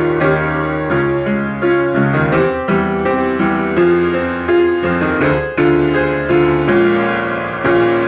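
Solo piano playing the accompaniment of a choral song: a steady flow of chords over held bass notes, several notes a second, each ringing on into the next.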